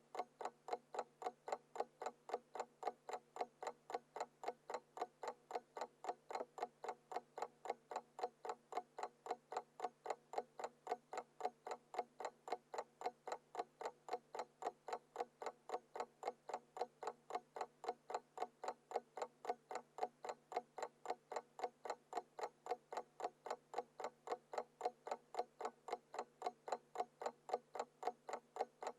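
Mechanical analog alarm clock ticking: fast, even ticks at about four a second, with no ringing.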